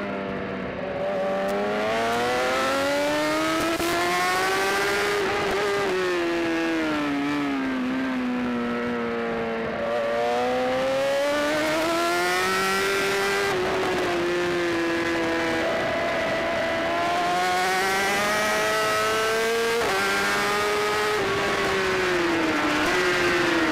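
Onboard sound of a racing superbike's engine at race pace. Its note climbs and falls in pitch over and over as the bike accelerates out of corners and slows into them, with short steps in the note between.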